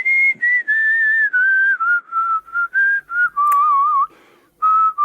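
A person whistling a tune: a string of short notes that step gradually down in pitch, a wavering held note a little past the middle, then notes climbing again near the end. A faint click comes about three and a half seconds in.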